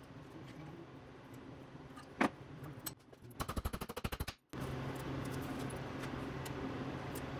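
Hammer striking a small metal part on the anvil of a steel bench vise. There is a single sharp metal clack a little over two seconds in, then a fast run of about a dozen taps lasting about a second that stops abruptly. After that a steady low hum carries on.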